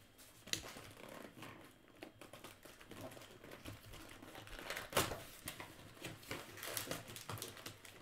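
Cardboard hobby box of trading-card packs being handled and opened, with light rustling and crinkling of the foil pack wrappers and scattered small taps. There is a sharper snap about five seconds in.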